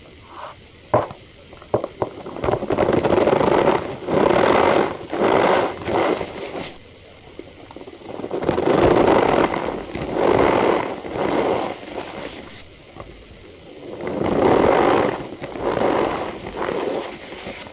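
Cornstarch powder squeezed and pressed by hand, giving repeated squeaky, crunching swells in three runs with short pauses between.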